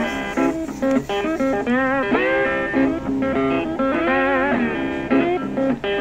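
Background music: a guitar instrumental of plucked notes, with a few long notes bent and wavering in pitch about two and about four seconds in.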